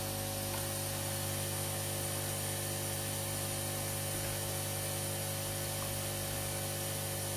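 Aoyue 968 hot air rework station running steadily: an even hum from its air pump under the hiss of air blowing through the hot air handpiece.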